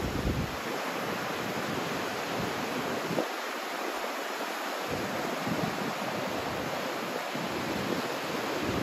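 Ocean waves breaking: a steady wash of surf, with a few brief gusts of wind on the microphone.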